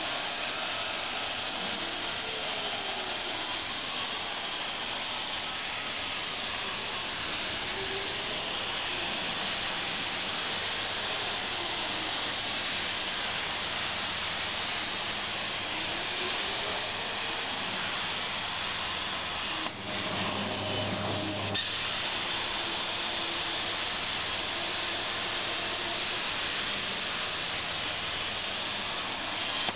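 CNC plasma cutter's arc cutting through metal plate: a steady, loud hiss, with a faint whine that rises and falls in pitch now and then. The hiss briefly dips and changes about twenty seconds in, then carries on.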